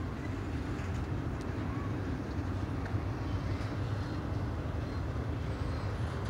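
Double-stack intermodal freight train's well cars rolling past, a steady low rumble of steel wheels on the rails with a few faint clicks.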